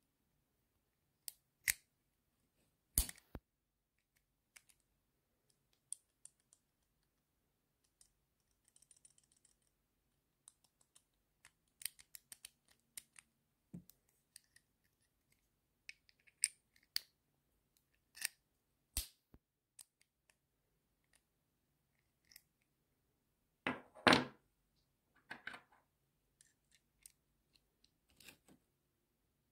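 Sharp metallic clicks of 1/4-inch hex bits being pushed into and pulled out of a black knurled bit-holder adapter, scattered irregularly a dozen or so times. About four-fifths of the way through comes a louder, longer metal rattle.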